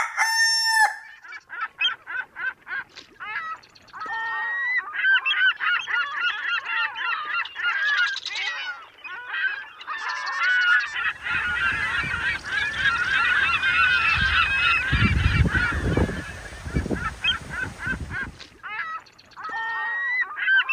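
A flock of birds calling over and over, many short rising-and-falling cries overlapping. From about halfway through to near the end, a rushing noise with a low rumble sounds under the calls for several seconds.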